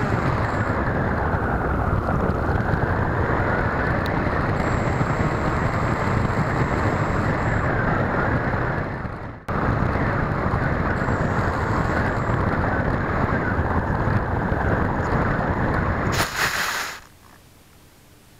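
Air rushing over the onboard camera of an electric RC glider, the MS Composit Swift 2, as it glides with its motor off. Near the end a short scuffing burst marks its touchdown in the grass, and then only a faint hiss remains.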